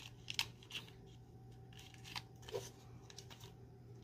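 Faint, scattered clicks and rustles of small cosmetic packaging being handled as an eye pencil is worked out of a stuck box, over a faint steady low hum.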